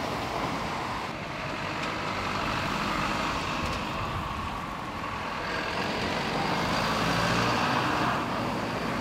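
A convoy of emergency-service vehicles driving past: steady engine and tyre noise, growing louder in the second half as a bus approaches.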